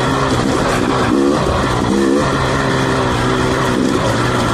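2020 KTM 300 XC TPI's fuel-injected two-stroke engine running at low revs while the bike is ridden slowly, with short rises and falls in pitch about a second and two seconds in as the throttle is worked.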